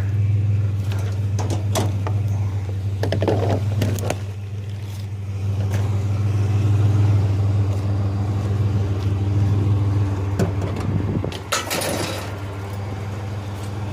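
Vehicle engine idling steadily, with a few scattered knocks and clatters.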